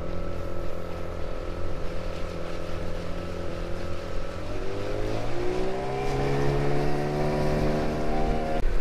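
Small outboard motor on an inflatable dinghy running steadily at low throttle, then opened up about halfway through, its pitch rising and settling higher as the dinghy gets under way.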